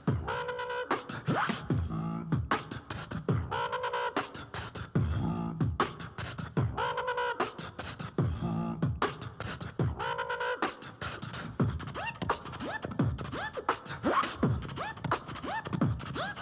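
Vocal beatbox music: a steady rhythm of mouth-made drum hits, with voiced tones coming back every few seconds and short falling low notes.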